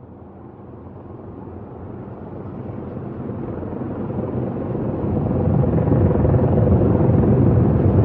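Low, noisy rumble fading in and growing steadily louder.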